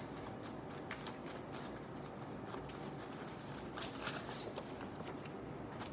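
Tarot cards being shuffled by hand: a faint, continuous run of small clicks.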